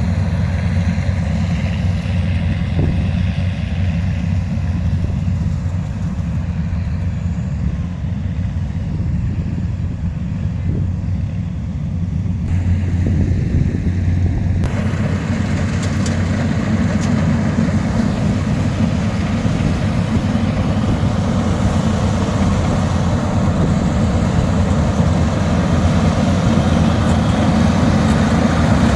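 Combine harvester and tractor engines running steadily in a rice field, growing louder about halfway through as the machines come closer.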